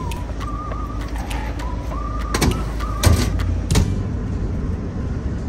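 A dog whining in short, wavering, high-pitched cries over the steady rumble of a moving bus. There are a few sharp clanks in the second half.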